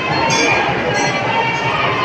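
Music playing over the chatter of a dense crowd, with a couple of sharp clicks.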